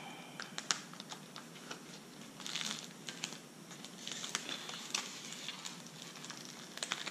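Paper backing being peeled off a vinyl paint mask and handled: stiff paper and plastic film crackling and rustling, with many small sharp clicks.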